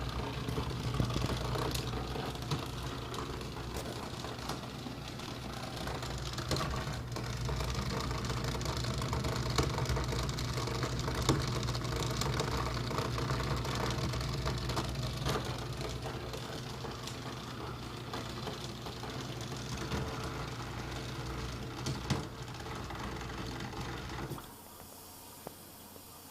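Kenmore dishwasher (model 13273) running with a steady low hum and many irregular clicks and knocks: a strange noise that the owner cannot place, in a machine less than a year old. The sound drops away suddenly near the end.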